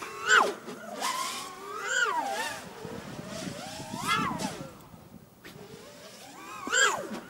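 7-inch FPV quadcopter with 2207.5 brushless motors buzzing overhead, its pitch jumping up and falling back with each of several throttle bursts. At full throttle its sound is rough, which the owner puts down to motor timing or the props.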